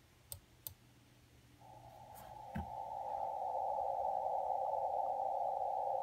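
Ham radio receiver audio on the 20-metre band in CW mode: a steady hiss confined to a narrow band by the 400 Hz filter fades up about a second and a half in and then holds. It is the noise heard to the northwest whose source is being sought. Before it come two sharp clicks, then another click with a low thump.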